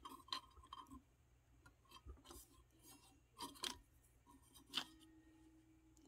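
Faint handling noise: several light clicks and knocks of a plastic spin-dye rack being lifted off a record player's rubber platter, the loudest knock about five seconds in.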